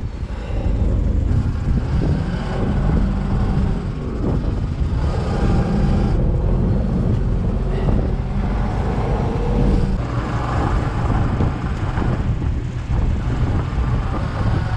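A fishing boat's engine running steadily, a low hum under a constant rush of noise.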